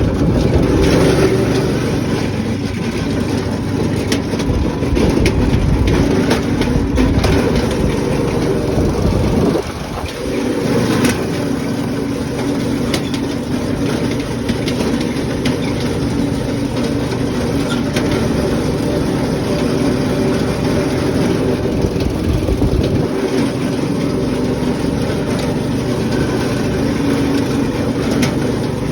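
An engine running steadily and loudly close to the microphone, its level dipping briefly about ten seconds in.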